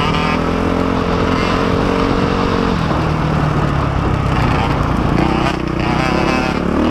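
Dirt bike engine running under throttle on a trail ride. Its pitch holds steady, drops about three seconds in, and climbs again near the end as the throttle is opened.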